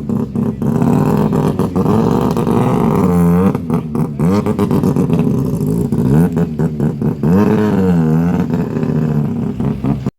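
Mazda Miata's two-rotor 12A rotary engine revving repeatedly, its pitch climbing and dropping again every couple of seconds, with sharp crackles from the exhaust in between. The sound cuts off abruptly near the end.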